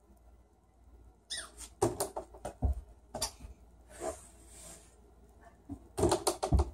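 Knocks and thumps from a small ball and hands at play around a wooden door. A short falling squeak comes about a second in, scattered knocks follow, there is a soft rustle around four seconds, and a quick run of knocks comes near the end.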